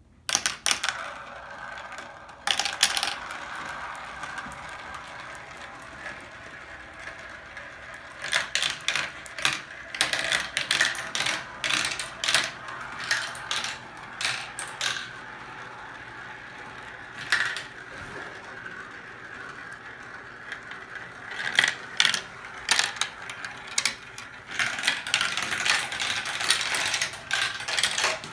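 Marbles rolling through a marble run, a steady rolling sound broken by runs of rapid clicks and clatters as they drop and knock through the track pieces.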